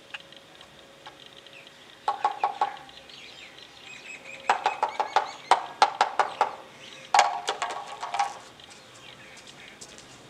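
A soot-blackened glass bottle clinking: three bursts of quick, sharp taps with a glassy ring, about two, four and a half and seven seconds in.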